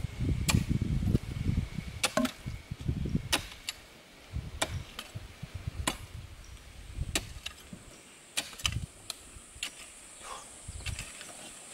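A pick digging into wet clay around a bogged-down 4x4's front wheel to free it: irregular thuds and sharp clicks about once a second, heaviest in the first few seconds.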